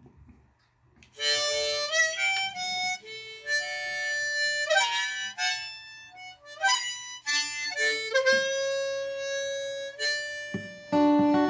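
Harmonica in a neck rack playing a bluegrass melody line of held notes, some sliding up in pitch. Near the end an old Washburn acoustic guitar comes in underneath, strummed.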